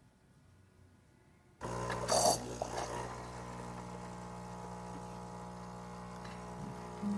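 Gaggia Academia espresso machine starting its brew cycle for a shot: a steady low mechanical hum cuts in about a second and a half in, with a brief louder burst just after it starts, then runs on evenly.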